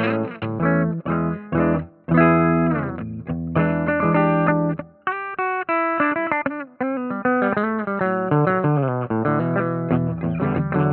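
Chibson Gold Top electric guitar played through an amp: strummed chords, a short run of single notes in the middle, then ringing chords again.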